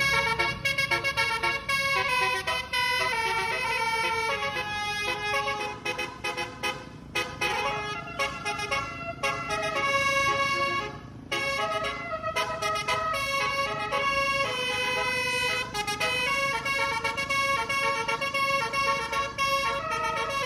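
Bus telolet horn, a Basuri-type multi-trumpet air horn, playing a tune: a rapid run of pitched horn notes that step up and down, with brief breaks between phrases.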